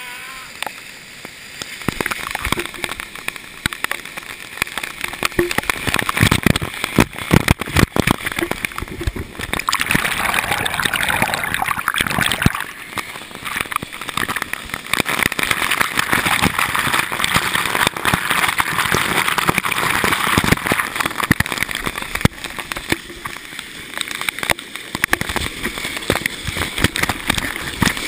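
Waterfall water pouring and splashing directly onto the camera: a loud rushing hiss with irregular splattering hits and sloshing that swell and ease as the camera moves in and out of the flow.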